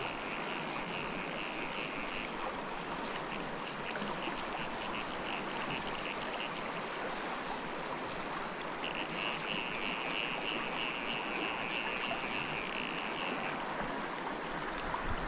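Fast river current rushing steadily. Over it runs a high, rapidly pulsing buzz that stops shortly before the end.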